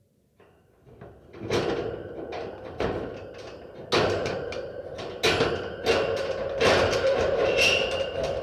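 Designed sound effect of a dungeon cage door working: after a near-silent start it swells, then comes a series of sharp clanks and slams about a second apart, each with a ringing tail, over a steady ringing drone.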